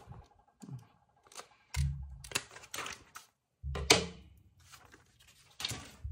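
Scissors snipping through printed paper and plastic film, then the cut sheets rustled and handled on the table: a run of clicks and crackles with two dull thumps, about two and four seconds in, the second topped by a sharp click that is the loudest sound.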